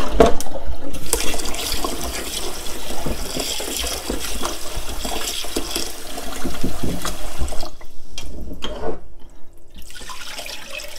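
Rinsing basmati rice in a saucepan at a kitchen sink. Cloudy, starchy water is poured off into the sink, and a tap runs into the pot while a hand swishes the grains. The water sound drops away for a couple of seconds about eight seconds in, then the pot is tipped out again.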